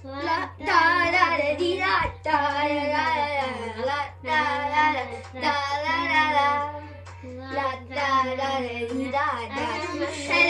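Children singing a pop tune with no backing, in short phrases of wavering held notes without clear words, over a steady low hum.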